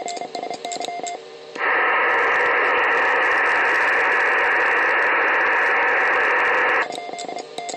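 Receiver audio from a shortwave transceiver on the 12-metre band: Morse code (CW) tones at first, then, about a second and a half in, a loud steady hiss of receiver noise that cuts off suddenly about five seconds later, after which the Morse tones return.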